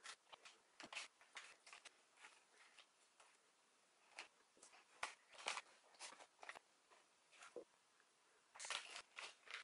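Faint, scattered clicks, taps and rustles of a block of butter being cut into cubes with a knife on its paper wrapper and the cubes dropped into a plastic mixing bowl of flour.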